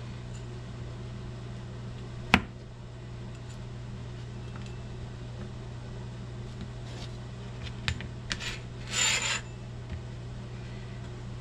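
Chef's knife slicing porcini mushrooms on a plastic cutting board: one sharp knock of the blade on the board a couple of seconds in, then a few lighter clicks and a short scraping rasp near the end. A steady low hum runs underneath.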